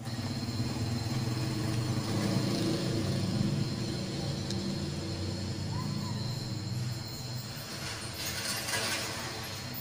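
Steady low rumble of a motor vehicle in street ambience, with a brief rushing hiss about eight seconds in.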